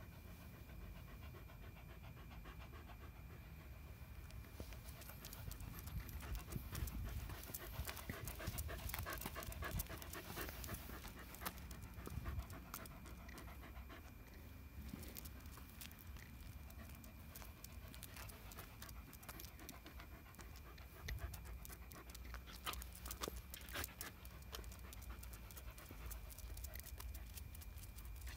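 Shetland sheepdog panting close by, with many short clicks and rustles from about five seconds in.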